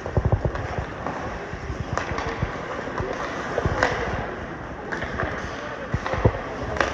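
Ice hockey game play in a rink: a few low thuds at the start, then sharp clacks of sticks and puck every second or so over steady arena noise.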